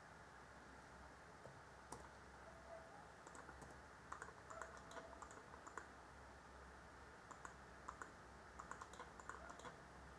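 Faint computer keyboard typing and mouse clicks in scattered bursts over a low steady hum.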